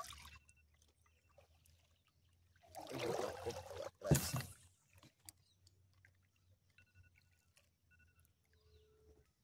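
A kayak paddle stroking through the water: one longer splash about three seconds in and a short one just after four seconds.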